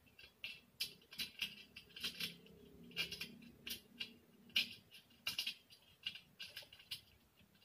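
A screw being turned by hand into a metal table frame's corner joint: short squeaky clicks, several a second at an uneven pace.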